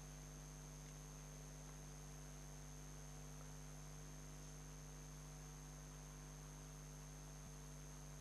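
Faint, steady electrical mains hum with hiss and a thin high-pitched whine, the background noise of the recording setup.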